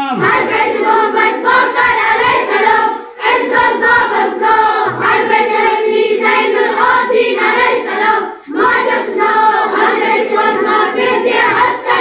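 A group of children singing a devotional chant in unison, in three long phrases with brief breaks about three and eight and a half seconds in.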